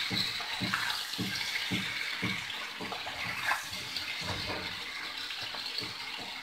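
Stuffed green chillies sizzling in hot mustard oil in an aluminium pan, nearly done frying over a low flame. A wooden spatula stirs them, knocking and scraping against the pan about twice a second.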